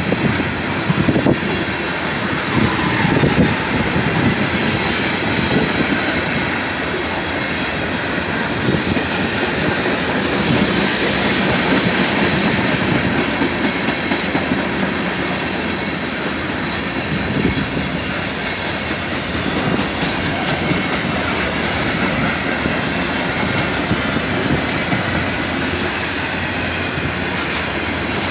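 Norfolk Southern freight train's tank cars, covered hoppers and boxcars rolling past: a steady rumble and clatter of steel wheels on the rails, with a steady high-pitched tone running over it.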